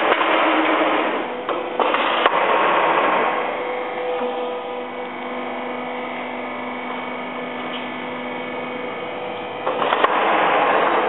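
Hydraulic stone splitter running with a steady hum. It gets louder and rougher as the blade presses down on the block at the start, again about two seconds in and near the end, with a few sharp cracks as the stone splits.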